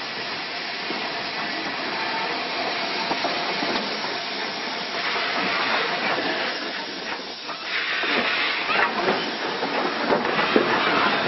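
Southern Railway Lord Nelson class 4-6-0 steam locomotive No. 850 passing slowly close by: a steady hiss of steam, getting louder about eight seconds in, with short knocks and clanks as the engine and tender go past.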